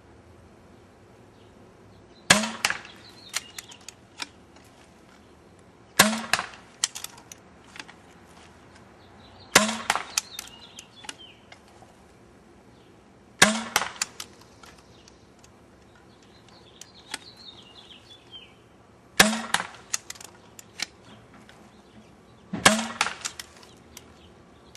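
Six shots from a Sheridan-based pump-action paintball pistol on a 12-gram CO2 cartridge, firing small-bore paintballs, spaced a few seconds apart. Each shot is a sharp pop followed by a quick run of clicks.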